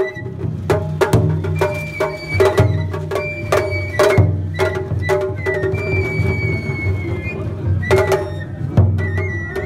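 Japanese festival hayashi music played on a float: a large taiko drum and sharp stick strikes beating an uneven rhythm about two or three times a second, with a high bamboo flute holding long notes over a steady low hum.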